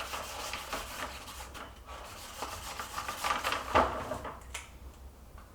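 Hand rubbing and scraping against wood, uneven strokes with a few short sharper knocks, the loudest just before four seconds in.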